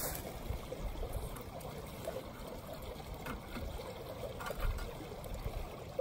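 Steady rushing of a stream running nearby, with wind gusting on the microphone and a few faint light clicks.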